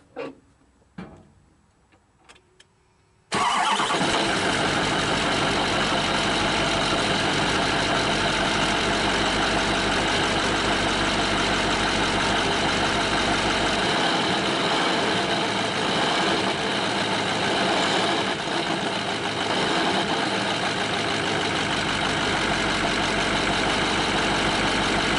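A Duramax 6.6-litre V8 turbo diesel in a 2004 C4500 truck starts abruptly about three seconds in, after a few faint knocks, and idles steadily, heard close up at the front of the engine. The harmonic balancer is said to be bad, and the owner suspects the wobble may even come from a broken crankshaft.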